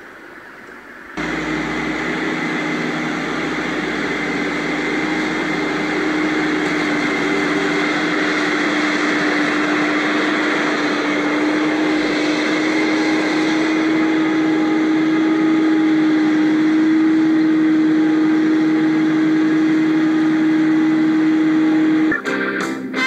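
Forage harvester at work chopping maize, running as a steady machine drone with a constant hum. It starts abruptly about a second in and cuts off near the end.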